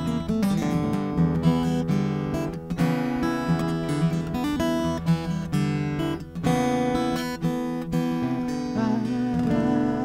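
Steel-string acoustic guitar strummed alone, without singing, in the closing instrumental bars of a folk song, with a chord left ringing near the end.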